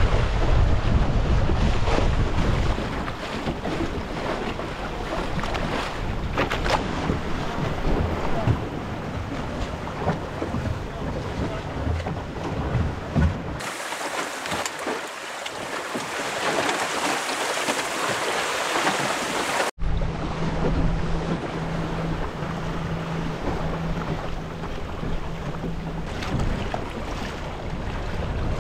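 Strong wind buffeting the microphone over water rushing past the hull of a 14 ft Welsford Navigator sailing dinghy in a fresh breeze. About halfway through the sound switches abruptly for some six seconds to a higher hiss of water without the wind rumble, then cuts back to the wind and water with a steady low hum for a few seconds.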